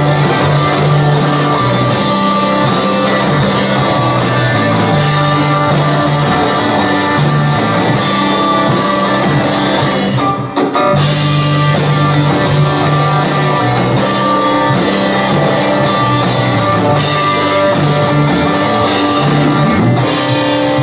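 Live rock band playing an instrumental passage on electric guitars and drum kit, loud and full, with a brief stop about halfway through before the band crashes back in.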